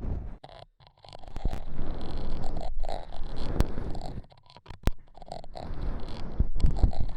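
Close-miked ASMR scratching and rubbing against the microphone, in long stretches broken by short pauses about half a second in and about four and a half seconds in, with a few sharp clicks.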